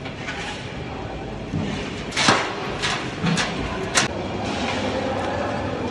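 Lumps of charcoal clattering onto the flat metal lid of a lagan pot as it is loaded with coals for dum cooking: a few sharp hits in the second half, over a steady background din.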